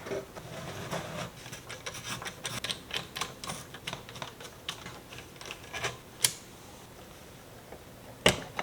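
Rapid small clicks and taps of computer parts and small-form-factor case panels being handled and fitted together by hand, followed by a single sharp click and, near the end, a louder snap.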